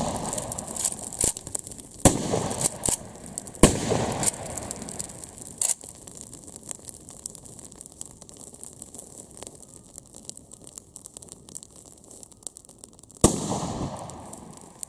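Shots from an Uzkon LA887 lever-action 12-gauge shotgun, each a sharp report with a ringing echo. Three come within the first six seconds, about two seconds apart, with smaller cracks between them, then one more about thirteen seconds in.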